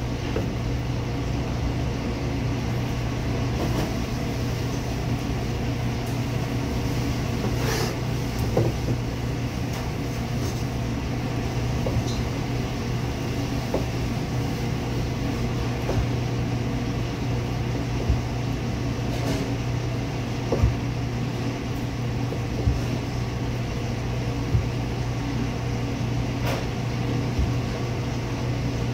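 Steady low hum of commercial kitchen machinery, with scattered light taps of a chef's knife on a cutting board as a pork loin is sliced.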